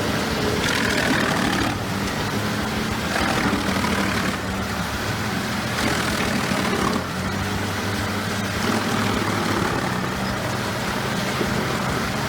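Engine of a large wood chipper running steadily, with a dense mechanical noise over it and a few brief dips in level.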